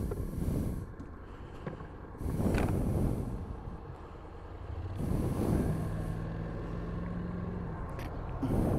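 Road traffic passing close by: three vehicles rush past a few seconds apart, over a low steady engine hum.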